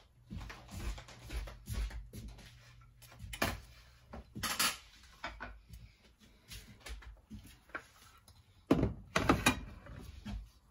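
Kitchen handling sounds: cookware and utensils being knocked, scraped and set down, a scattered series of clacks over a faint steady hum. A quick cluster of louder clacks comes near the end.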